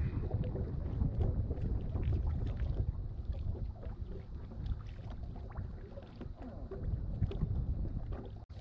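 Wind rumbling on the microphone and water lapping against the hull of a small fishing boat drifting on a lake, with light scattered splashes and taps. The sound cuts out briefly near the end.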